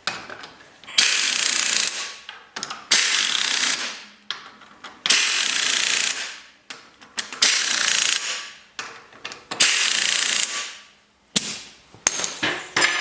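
Hand ratchet wrench clicking in about five strokes of roughly a second each, then two short ones near the end, running down the wheel bolts.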